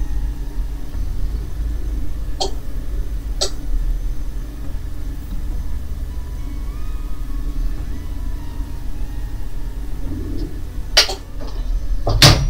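Steady low rumble and hum with a few faint clicks, then two sharp metallic clacks near the end as the swing-arm heat press's handle is released and its head lifted off the pressed vinyl.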